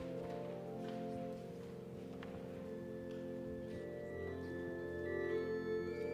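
Church organ playing slow, held chords as the introduction to a hymn, with a low pedal note joining about four seconds in.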